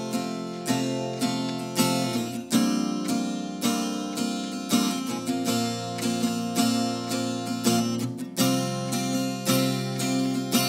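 Takamine acoustic guitar strummed by hand, a run of chord strokes that ring on between strums, with no voice yet.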